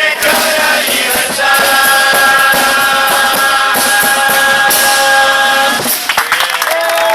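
Murga chorus singing together over drums and cymbals. The chorus holds one long note for about four seconds, which cuts off near the end.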